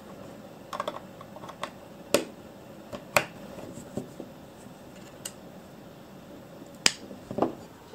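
Cable plugs being pushed into the ports of a single-board computer's circuit board, making scattered light clicks and taps at an irregular pace, the sharpest about three seconds in and again near the end.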